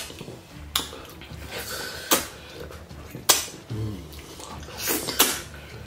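Eating sounds from two people eating goat meat and fufu in ogbono soup with their hands: about five sharp wet smacks and clicks spread out, from mouths, fingers and plates.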